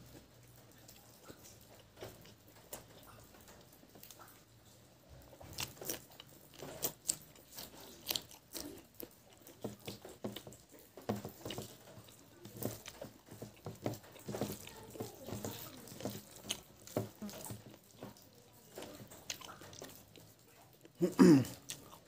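Close-up chewing of pork innards and rice: irregular wet mouth clicks and smacks, sparse at first and then steady from about five seconds in. A short burst of voice comes near the end.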